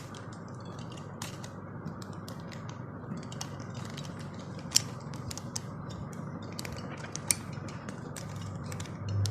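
Plastic clicking and creaking of a cheap plastic speed cube being pried open and its pieces taken apart, with two sharper snaps, one near the middle and one about three quarters through.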